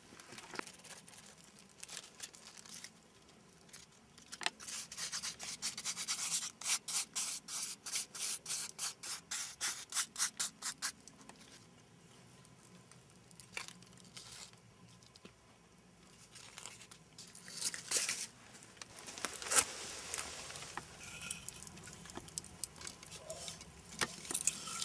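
Hands rolling and rubbing a floured ball of bread dough, a rhythmic rubbing of about three strokes a second for several seconds. Then quieter scattered rustling, with one sharp knock about three quarters of the way through.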